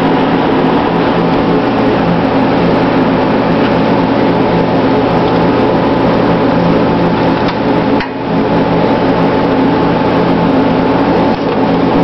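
Steady, loud machine hum with a few held tones under a broad rushing noise, dipping briefly about eight seconds in.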